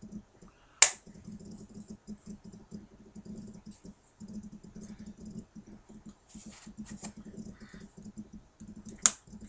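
Hands handling plastic action-figure stand pieces and packaging: small clicks and light rustling, with two sharp plastic clicks, about a second in and near the end.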